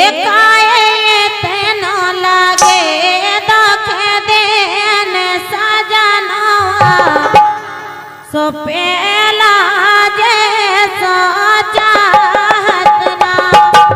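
Indian folk music: a sustained, wavering melody line over hand-drum strokes, with a brief dip about halfway through before it picks up again.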